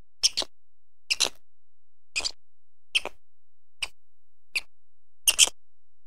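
Quokka nibbling a piece of food held in its paws: a run of short, crisp crunches, a little more than one a second.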